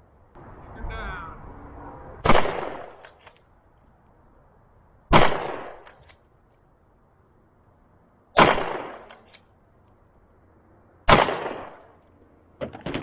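Four single gunshots about three seconds apart, each trailing off in a short echo.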